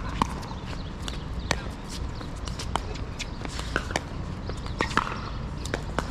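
Pickleball rally: paddles striking the hard plastic ball, a string of sharp pops roughly once a second, some in quick pairs, with footsteps on the court.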